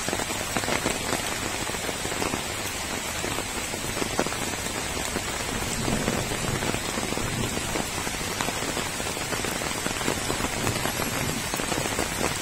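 Steady rain falling on wet ground, puddles and foliage, an even hiss dotted with many small drop hits.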